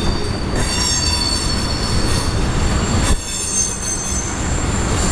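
Steel wheels of passing ethanol tank cars squealing on a sharp curve, several high-pitched tones at once over a steady rolling rumble. A single clank about three seconds in.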